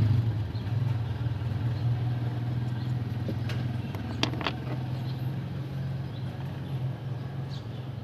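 Toyota Fortuner engine idling steadily with a low, even hum. A few sharp clicks come about three and a half to four and a half seconds in.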